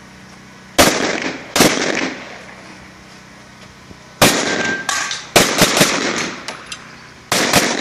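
Glock 35 pistol in .40 S&W firing, each shot a sharp crack with a short ringing tail. Two shots come about a second in, a quick string of several shots follows past the middle, and one more comes near the end.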